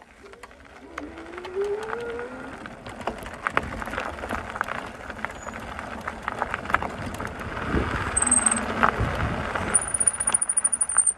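Electric fat bike (GZR Pedelec fat-e) riding on a gravel road: steady tyre noise over gravel with frequent clicks and rattling knocks from the bumps, which grow busier near the end. A whine rises in pitch over the first two seconds as the bike picks up speed.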